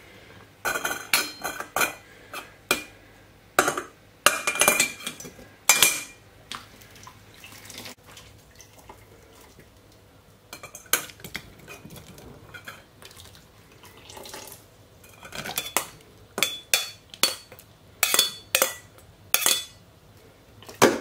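A metal spoon clinking against a stainless steel canning funnel and cooking pot as pineapple chunks are spooned into glass jars. Bursts of sharp clinks, some with a brief ring, with a lull of a few seconds in the middle.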